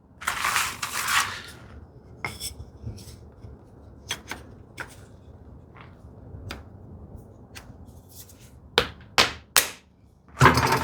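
Hand tools being handled at a workbench while a handmade wooden rebate plane is set up: a short scraping rush at the start, scattered light knocks and clicks, then three quick sharp taps near the end and another brief scrape.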